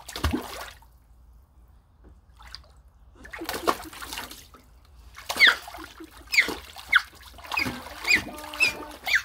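Water splashing in a small inflatable kiddie pool as a toddler slaps and kicks at it, with bright dripping and splattering of drops. There is one splash near the start, another around the middle, then a quick run of about seven splashes in the last few seconds.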